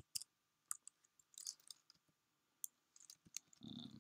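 Faint, sparse keystrokes on a computer keyboard, a few isolated clicks at irregular intervals, with a short low hum near the end.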